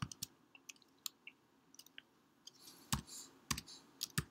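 Computer keyboard keys clicking as a few characters are typed one at a time, irregular single presses with pauses between them and a few louder presses in the second half.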